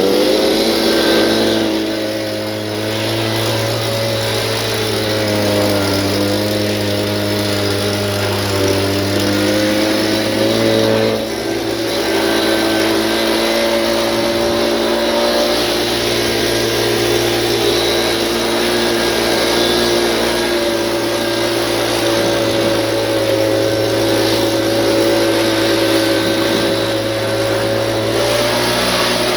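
Walker C19 riding mower's engine running steadily, its pitch wavering and shifting slightly a couple of times.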